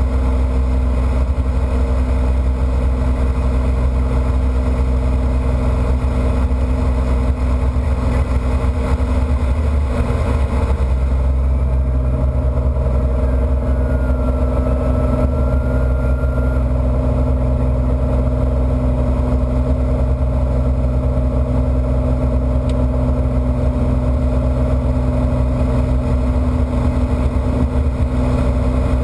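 Single-engine propeller airplane in cruise, its piston engine and propeller making a loud, steady drone heard from inside the cabin. The tone shifts slightly about eleven seconds in.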